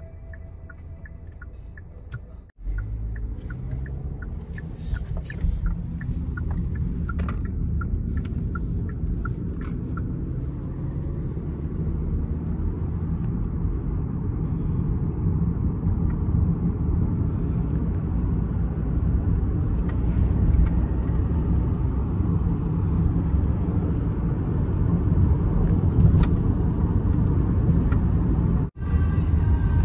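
Steady low rumble of a car driving on the road, growing slightly louder over the stretch. Background music plays for the first couple of seconds, up to a sudden cut.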